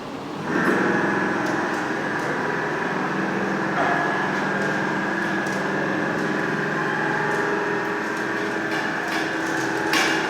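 CNC slant-bed lathe running: a steady machine whine made of several fixed tones comes on about half a second in and holds level, with a few faint ticks.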